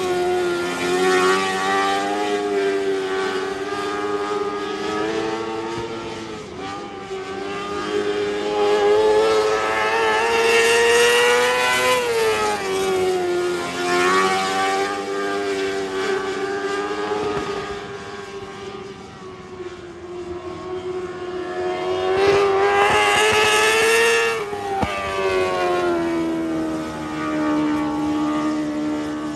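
Lightning sprint car engine running hard, its pitch climbing steadily for several seconds and then dropping sharply as the throttle comes off, three times over, like laps on a small oval.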